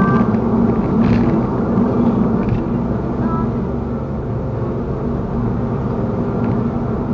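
Inside a moving car, as picked up by a dashcam's built-in microphone: a steady low rumble of engine and road noise.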